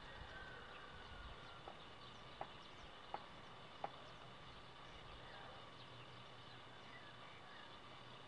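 Faint, quiet outdoor ambience with a thin steady high hum, broken by three soft short ticks about 0.7 s apart between two and four seconds in.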